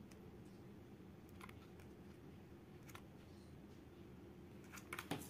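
Near silence: room tone, with a few faint light clicks, most of them near the end.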